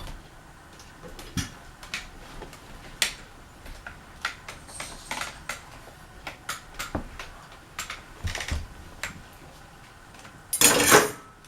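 Irregular clicks and clinks of a ceiling fan's loose light kit being handled and moved aside. Near the end comes a louder clatter of under a second.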